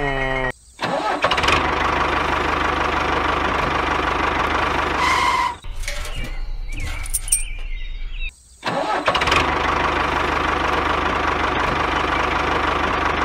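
Tractor engine sound running steadily, broken off twice by brief silent cuts. About five seconds in, a short high tone sounds, followed by a few high whistling glides.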